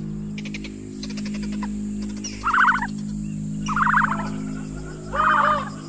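A short rattling animal call, repeated three times about a second and a half apart, over a steady low music drone. A quick run of fast clicks comes in the first second or two.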